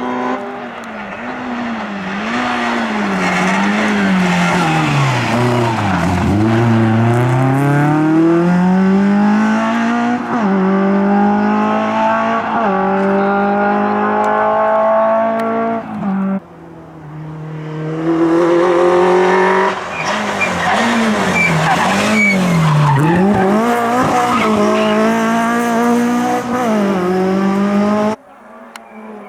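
Peugeot 106 rally car's four-cylinder engine driven hard on a stage, revs climbing and falling sharply through gear changes and lifts, with tyres squealing at times.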